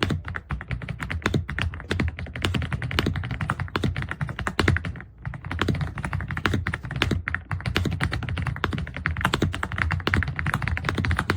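Fast typing on an Aula F65 gasket-mount mechanical keyboard with Graywood V3 linear switches: a dense run of keystroke clacks, with a brief pause about five seconds in.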